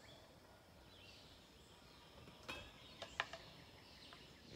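Near silence: faint outdoor background with a few faint, distant bird chirps and two soft clicks, one a little past halfway and one about two-thirds of the way in.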